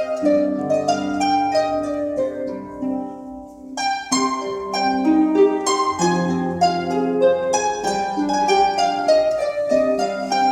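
A harp ensemble playing together: many plucked notes ringing over held bass notes. The music thins out about three seconds in, then comes back fuller at about four seconds.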